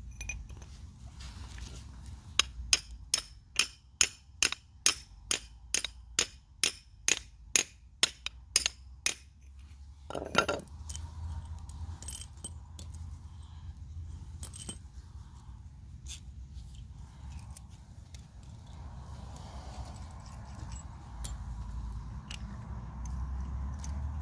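A hammer striking a Fischer drop-in anchor setting tool: a steady run of about seventeen sharp blows, two to three a second, driving the tool in to spread the end of the anchor in the wall. One more knock follows, then a few lighter clicks and scrapes.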